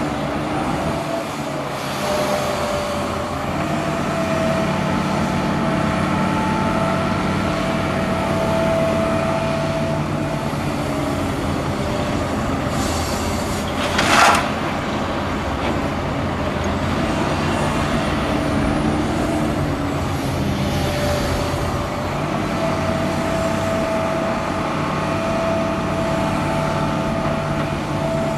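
Hitachi Zaxis 350 excavator's diesel engine and hydraulics working under load as it digs and swings, with a whine that rises and falls. About halfway through comes a short, loud burst of noise as a bucketload is dumped into the tipper truck's body.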